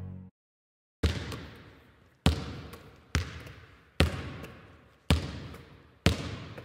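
A basketball bounced slowly on a hard, echoing court floor, six bounces about a second apart, each ringing out before the next.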